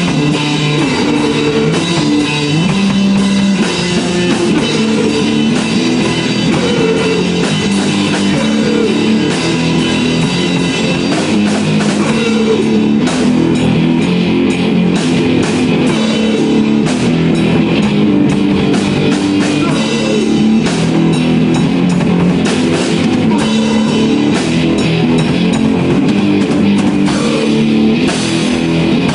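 Live rock jam on electric guitar and drum kit, played loud and continuously with steady cymbal and drum hits.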